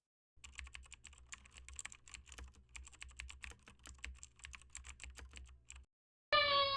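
Computer keyboard typing, a quick irregular run of key clicks for about five seconds. It stops, and just before the end a loud pitched buzzy note with many overtones starts suddenly and is held, sagging slightly in pitch.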